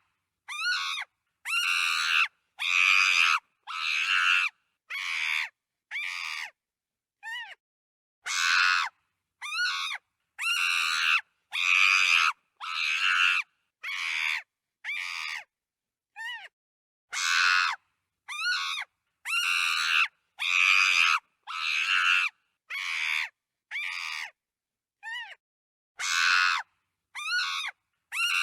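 Chimpanzee screaming: a series of loud, harsh shrieks, each up to about a second long, broken by short calls that bend in pitch, with brief silent gaps between them. The same run of calls repeats about every eight and a half seconds.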